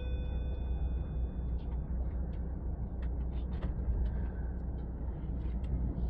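Steady low road and engine rumble inside a moving car's cabin on a motorway. A short bell-like chime rings right at the start and fades out.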